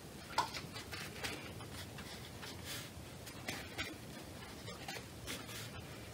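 Watercolour brush working paint in a plastic mixing palette and stroking on paper: faint, short scrubbing swishes and light taps, several times.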